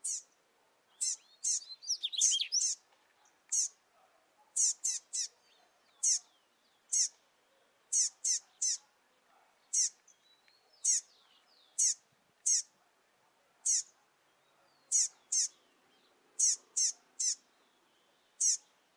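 Double-collared seedeater fledgling calling over and over with short, high, downward-sweeping notes. They come about once a second, often in quick pairs or triples, with a busier tangle of calls about two seconds in.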